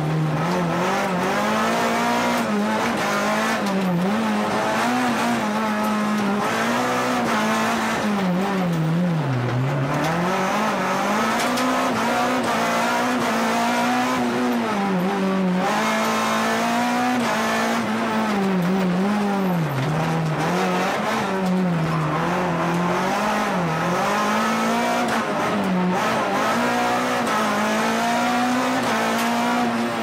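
Renault Clio Williams Group A rally car's 2.0-litre four-cylinder engine heard from inside the cabin, driven hard, its revs climbing and falling every second or two through gear changes and braking for bends. The revs dip deepest about nine seconds in.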